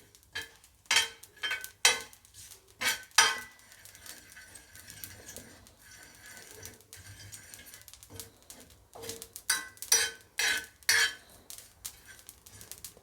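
A metal utensil stirring and scraping ajwain (carom seeds) dry-roasting on a hot tawa, with ringing clinks of metal on the griddle. The clinks come in quick runs at the start and again over the second half, with a quieter stretch of faint stirring in between.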